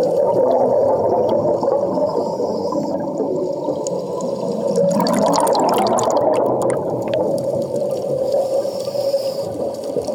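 Scuba divers' exhaled air bubbles heard underwater: a steady muffled rushing, with a louder burst of bubbling and crackling about halfway through as a cloud of bubbles sweeps over the camera.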